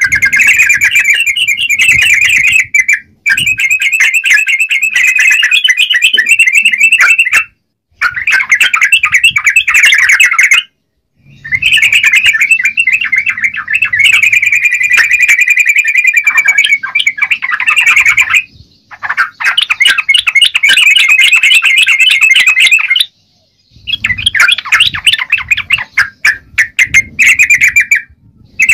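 Yellow-vented bulbul (trucukan) singing loudly and continuously: rapid, bubbling chattering phrases in long bursts of several seconds, broken by a few short, abrupt pauses.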